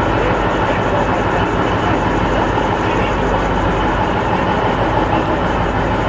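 NSW TrainLink XPT diesel power car running steadily as the train pulls away along the platform, a constant engine and rail noise.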